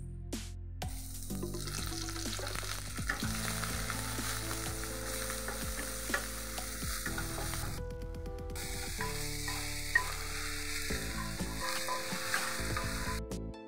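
Chopped onions, dried red chillies and curry leaves frying in hot oil in a nonstick pan, sizzling steadily as a wooden spatula stirs them. The sizzle starts about a second in, breaks off briefly about two-thirds of the way through, and stops just before the end.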